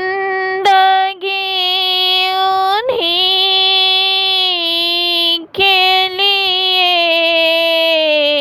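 A child's solo voice singing a naat, an Urdu devotional poem, holding long drawn-out vowels on steady notes with a few brief breaths. The pitch steps down near the end.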